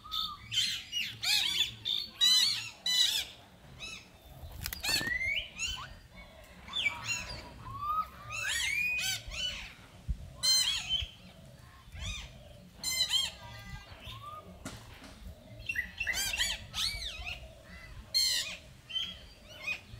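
Macaque monkeys giving many short, high-pitched squeals and chirps, often overlapping, in clusters with a quieter stretch about two-thirds of the way through.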